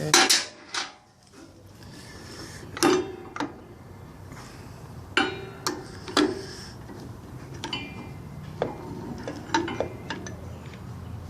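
Metal transmission clutch-drum parts clinking and knocking together as they are handled, about a dozen separate strikes at irregular intervals, several with a short metallic ring, over a low steady hum.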